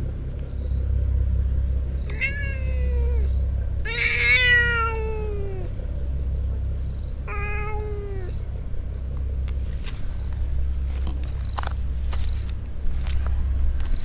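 Stray cat giving three drawn-out yowls, each falling in pitch, the middle one longest and loudest: a strange call aimed at a rival cat. Crickets chirp faintly, and a few light clicks come near the end.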